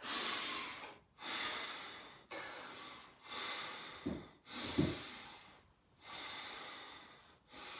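A man breathing hard from exertion, with about one loud breath a second and short gaps between. Two of the breaths are voiced, about halfway through.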